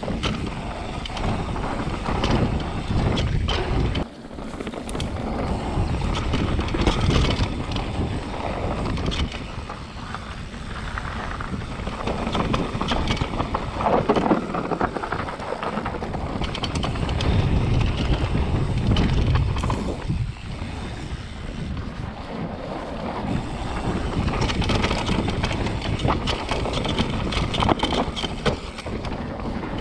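Mountain bike riding fast down a dirt trail: a steady rush of wind on the microphone, with tyre noise and the frame and chain clattering over bumps.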